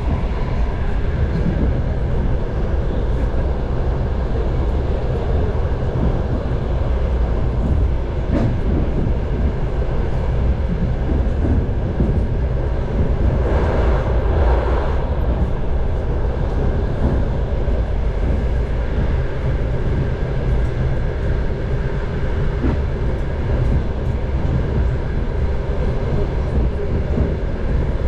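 Train in motion heard from inside its passenger car: a steady rumble of wheels on the rails and running gear from a car hauled by a 2TE10U diesel locomotive. A louder rushing stretch comes about halfway through.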